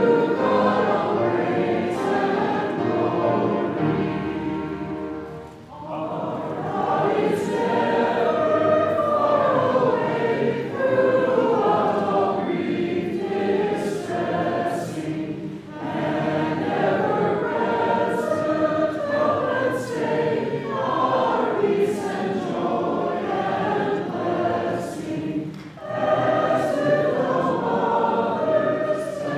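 Congregation singing a hymn together, many voices holding long sung phrases with brief breaths between lines.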